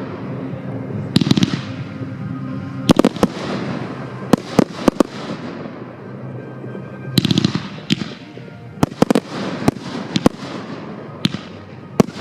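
Fireworks display: shells bursting in repeated sharp bangs, with two dense crackling bursts, one about a second in and one about seven seconds in.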